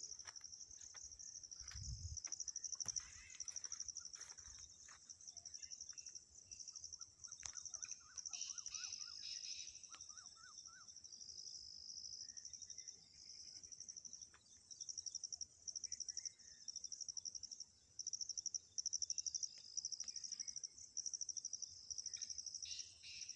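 A steady, high-pitched chorus of insects trilling in quick pulses, with a few short bird calls scattered through it, including a quick zigzagging run of notes about eight to ten seconds in.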